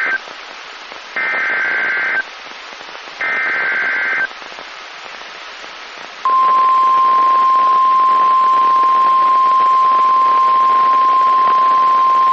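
NOAA Weather Radio alert over a hissing radio receiver: the end of the first, then the second and third of the one-second screeching SAME data header bursts, followed about two seconds later by the single steady 1050 Hz warning alarm tone. The tones mark the start of a new National Weather Service warning broadcast.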